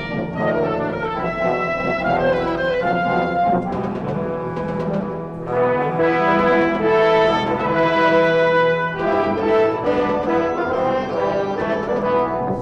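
Orchestral film score led by a brass section playing held chords that change every few seconds, growing louder about halfway through.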